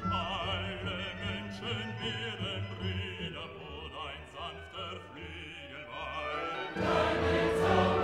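Background classical music with a wavering, vibrato-laden singing voice. A louder, fuller choral passage swells in near the end.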